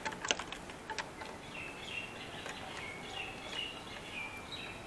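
Birds chirping in quick, repeated short calls, over a steady background hiss. In the first second there are a couple of sharp clicks from a screwdriver working the bolt of the guard.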